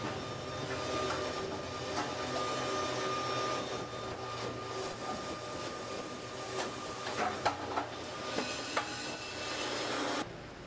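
Concrete pipe handling machinery running: a steady mechanical hum with a high whine, a sharp clank about two seconds in, and a cluster of metal knocks and clanks around seven to nine seconds as a pipe is shifted from its cradle onto a transfer carriage. The hum drops away suddenly near the end.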